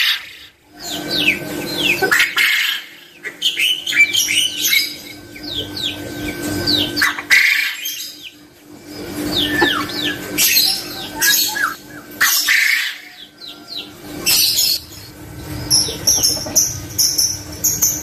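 Caged male quail calling: bursts of quick, downward-sliding chirps that come again every second or two, with a steady hum underneath.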